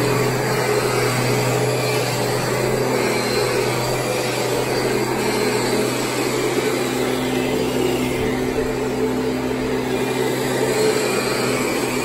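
Kirby G5 upright vacuum cleaner running steadily as it is pushed over carpet: a constant motor hum under the rush of suction air.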